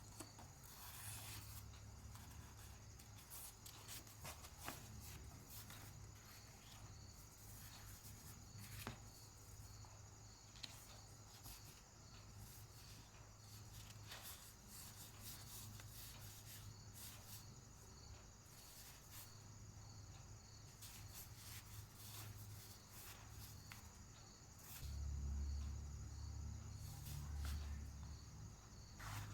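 Faint handling noises of small packaged items, sticker sheets and paper being unpacked: scattered small clicks and rustles over a low hum, with a couple of duller thumps near the end.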